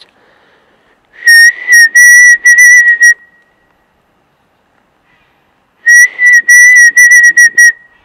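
A man whistling a bird call, imitating a bird to get it to answer. There are two loud phrases of about two seconds each: a steady high note with a slight warble, broken into short notes.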